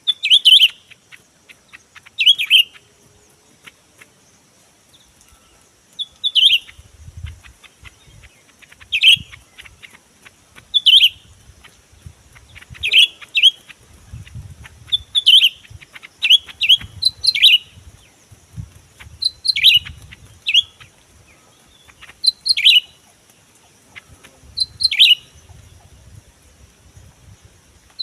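Greater green leafbird (cucak ijo) calling: short, sharp chirps that sweep down in pitch, repeated every couple of seconds and sometimes given in quick pairs. A steady high hiss and faint low rumbles lie underneath.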